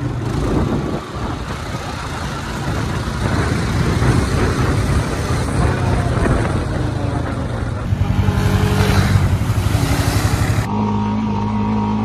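Honda ATV (four-wheeler) engine running while being ridden over dirt, under a loud rushing noise. About eight seconds in, the engine note turns into a fast pulsing throb as it is revved. Near the end the sound cuts abruptly to a steadier, even hum.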